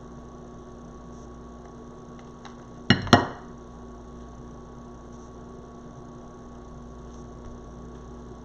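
Steady electrical hum, with two sharp knocks in quick succession about three seconds in.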